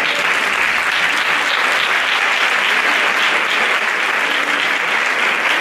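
Audience applauding steadily in a large room, cut off suddenly at the end.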